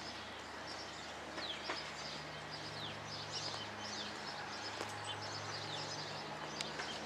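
Several birds calling: repeated short whistles that slide downward in pitch, mixed with chirps, over a steady low hum.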